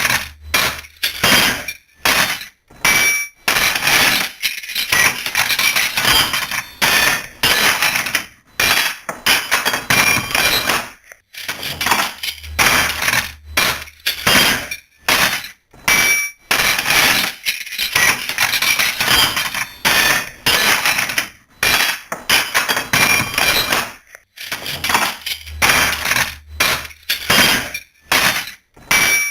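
Metal wrenches and other metal tools thrown into a toolbox one after another: a continual clatter of clanks and clinks that ring briefly, in quick irregular clusters with short pauses between.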